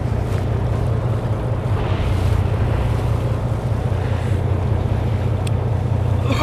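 A boat engine running with a steady low hum, under wind and sea noise.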